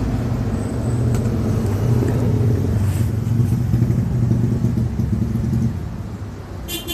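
A motor vehicle's engine running steadily, a low even hum that fades away about five and a half seconds in.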